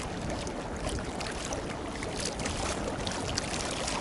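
Water lapping and splashing lightly, with many small scattered ticks, over steady wind noise on the microphone.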